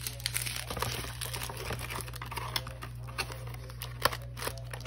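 Plastic packaging crinkling and rustling as small bagged items are handled and packed into a cardboard box, with light clicks throughout and a sharper tap about four seconds in.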